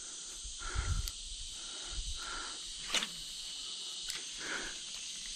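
Steady high-pitched drone of insects in the surrounding bush, with a sharp click about three seconds in.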